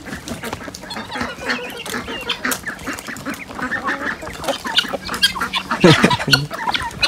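A flock of backyard poultry clucking and calling, many short overlapping calls, with one louder call about six seconds in.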